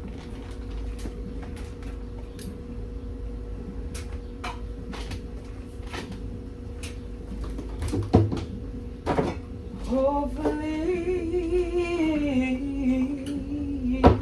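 A few knocks and clicks of kitchen things being handled. Near the end a woman hums a tune for about four seconds. A steady hum runs underneath.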